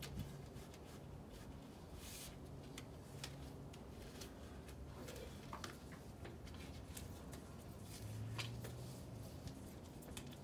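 Faint scraping and scattered light clicks as a tool works grease and pet hair out of the bottom-rail channel of an aluminum sliding glass door panel.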